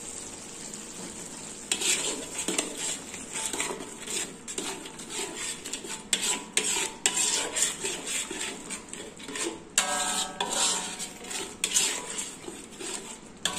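A metal slotted spatula stirring thick chilli sauce round an aluminium wok, in many irregular scraping strokes against the metal, over the sauce's low sizzle. The first second and a half or so is the sizzle alone before the stirring starts, and one scrape about ten seconds in rings briefly.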